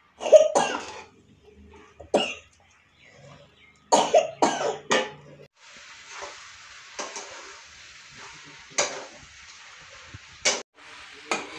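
Someone coughs several times in the first half. About halfway in, macaroni begins sizzling in a steel kadai as it is stirred, with four sharp clinks of the metal spatula against the pan.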